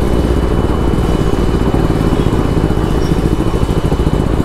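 Superbike engine running at low revs as the bike rolls slowly: a steady, rapid low pulsing with no revving.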